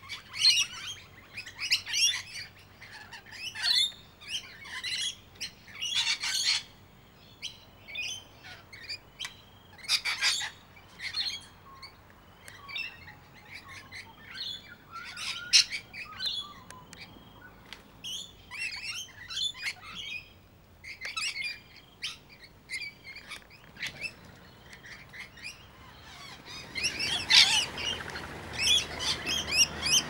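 A flock of rainbow lorikeets calling with many short, irregular chattering calls while feeding on the ground; over the last few seconds the calling grows louder and denser.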